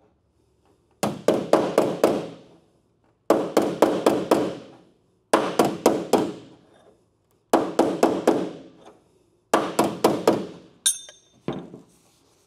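Body spoon tapping on the edge of a second-generation Camaro's steel door: five bursts of four or five quick metal strikes, about two seconds apart, each strike ringing briefly. It is bodywork to bring the door's outer edge out flush with the quarter panel. Near the end comes a short high metallic ring and one last knock.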